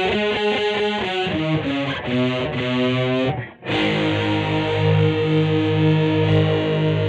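Greco EG-550 electric guitar through a Peavey Vypyr VIP 2 modelling amp with a distorted tone: a quick run of single notes, a brief break about three and a half seconds in, then a held chord that pulses evenly.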